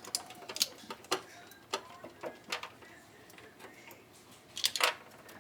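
Scattered sharp clicks and taps of hand tools and metal parts being handled during the water heater's electrical hookup, irregularly spaced, with a quick cluster of several near the end.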